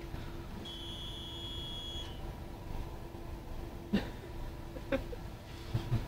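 A single high electronic beep in a tram driver's cab, held for about a second and a half, over a steady hum. Two short clicks follow later.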